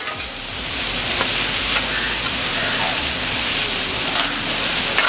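Sliced onions and whole green chillies sizzling steadily in hot oil in a large iron kadai, stirred with a perforated steel ladle. The onions are frying down to pakoda-like crispness.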